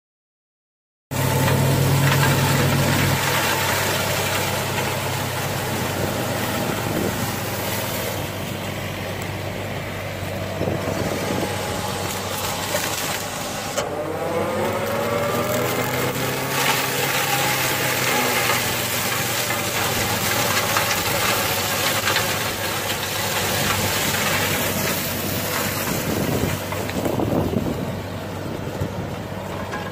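Kubota mini excavator's diesel engine running steadily under load while its hydraulic mulcher mower head spins and cuts through tall grass. The sound starts abruptly about a second in, and the pitch sweeps up and down about halfway through.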